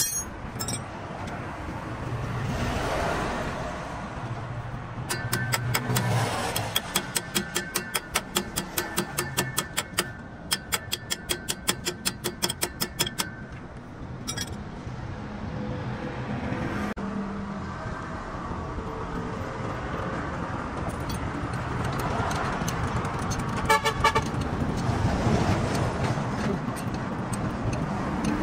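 Rapid hammer blows on steel, about four a second for some eight seconds, each ringing. A shorter burst of ringing strikes comes near the end, over a steady background of road traffic.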